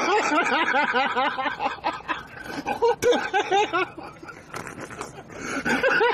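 Canned audience laughter, a laugh track after a joke's punchline: rapid ha-ha peals from several voices, loud at first, dying down in the middle and swelling again near the end.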